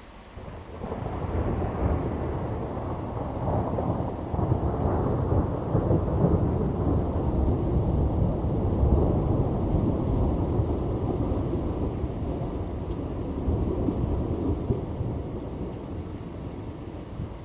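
A long roll of thunder in a rainstorm: the rumble builds about a second in, stays loud and deep for most of the time, then eases off toward the end, over the steady hiss of rain.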